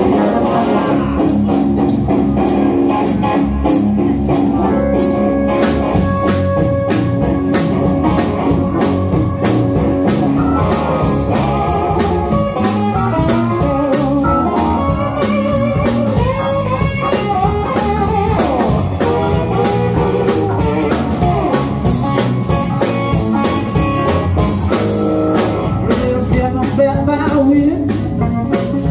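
Live band playing blues on electric guitar, electric bass, drum kit and keyboard, with a steady drum beat.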